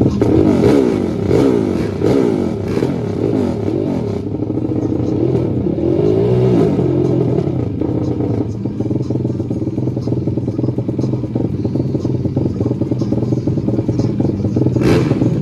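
Sport ATV engines at the drag start line, revving up and down in quick blips for the first half, then settling into a steady idle. There is one sharp crack near the end.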